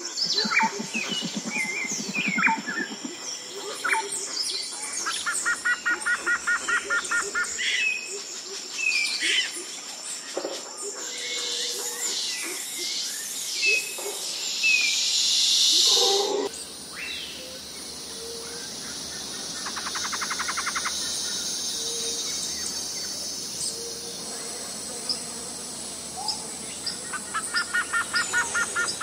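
Forest ambience of many birds chirping and calling over a steady high insect drone. A rapid trill of evenly spaced pulses comes three times, and the background changes abruptly about halfway through.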